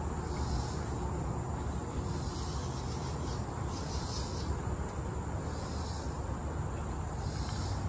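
Insects calling in swells of high buzzing about every one and a half to two seconds, over a steady thin high whine, with a steady low rumble underneath.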